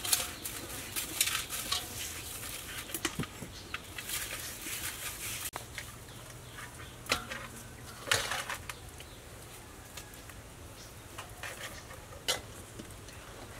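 Salt being rubbed by hand into a whole snakehead fish in a stainless steel bowl: irregular gritty scraping and rustling, with a few sharper knocks of the fish against the metal bowl.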